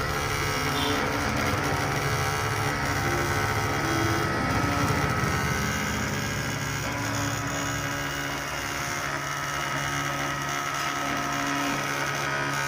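Small battery-powered DC motor spinning a plastic propeller inside a homemade box vacuum cleaner, running as a steady whir.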